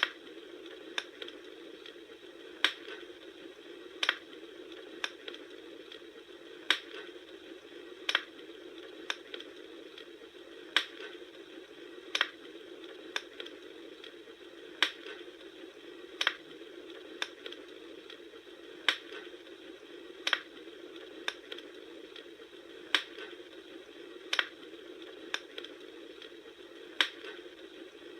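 Campfire crackling: sharp pops and snaps over a steady low hiss. The pops come in an evenly repeating pattern, about three every four seconds.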